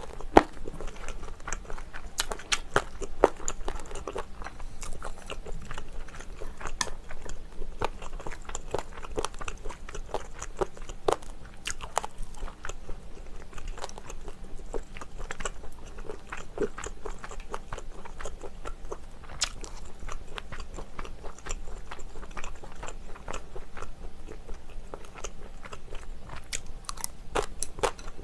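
Close-miked chewing and eating sounds: a person eating spicy braised chicken, with many irregular wet mouth clicks and smacks.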